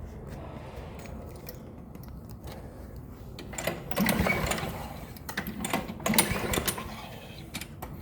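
John Deere walk-behind mower's engine being pull-started on its recoil starter, cranked over in quick rattling spins twice in the second half, with a shorter one near the end. It turns over but does not fire, even after five pumps of the primer bulb.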